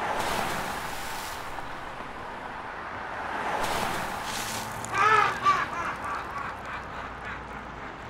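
A woman crying: breathy sobbing gasps, then a loud wavering wail about five seconds in that breaks into shorter sobs.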